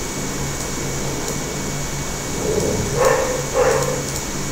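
Steady low hum and hiss of room noise, with a few short, faint vocal sounds about three seconds in.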